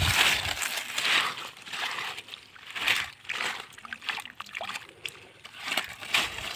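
Hands sloshing and splashing through shallow muddy water and wet leaf litter, in irregular surges. The loudest is at the start, with others about a second, three seconds and six seconds in.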